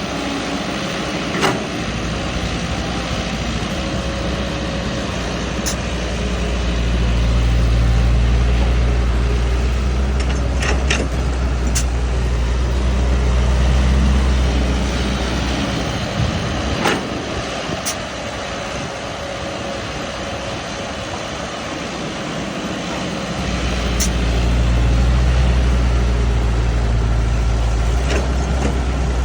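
A heavy vehicle engine running, its low note swelling and easing off twice, with a few sharp clicks or knocks scattered through.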